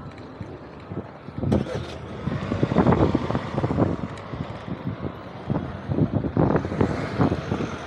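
Wind buffeting the microphone on a moving bicycle, an uneven low rumble that surges and drops, mixed with street traffic. There is a sharp click about one and a half seconds in.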